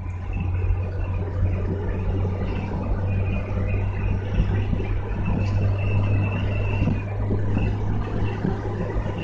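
Inside a moving car's cabin: steady engine and tyre noise, a low hum over a constant road rush.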